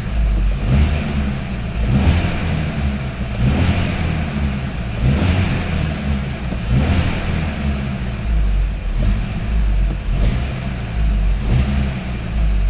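Hyundai/Kia 1.4 T-GDI turbocharged four-cylinder engine running with the rattle it is known to have, its sound swelling roughly every one and a half seconds as if the throttle is being blipped.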